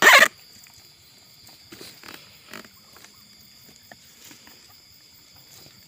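A short, loud, wavering animal cry right at the start. After it come a few faint rustles and scrapes as a hand works into the rotting, fibrous palm stump.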